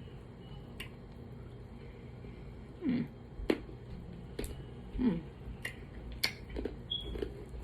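Person eating candy: scattered sharp mouth clicks and smacks, with two short falling hums of the voice in the middle.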